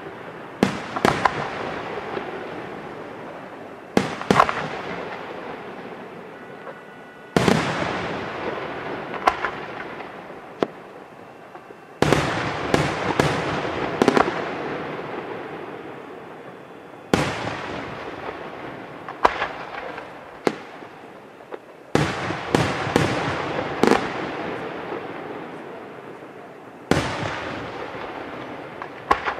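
Aerial firework shells bursting. A loud bang comes about every five seconds, each followed by a few sharper reports and a long rumble that slowly dies away.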